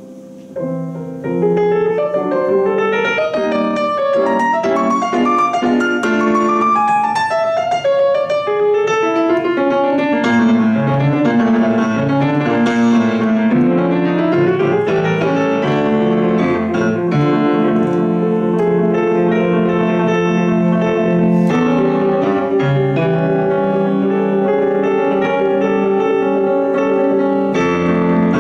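Solo grand piano playing: soft at first, it turns loud about a second in and carries on with dense flowing figures and chords, including a rising run about halfway through.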